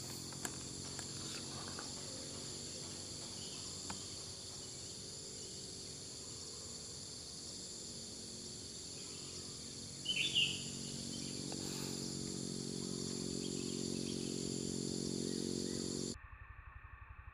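Steady high-pitched chorus of insects in tropical bamboo, with a brief bird chirp about ten seconds in and a low hum underneath that grows a little in the second half. The sound cuts off abruptly near the end.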